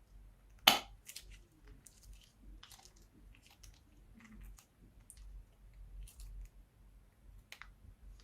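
Slime being worked by hand: scattered sticky clicks and small crackles, with one louder crackle just under a second in.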